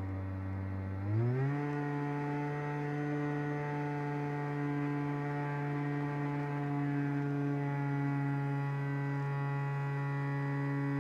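Electric motor and propeller of a small RC flying wing whining in flight; the pitch rises smoothly about a second in as the throttle comes up, then holds steady.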